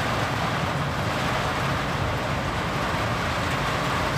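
Heavy tropical rain pouring down in a steady hiss, over the low, even hum of an idling diesel dump-truck engine.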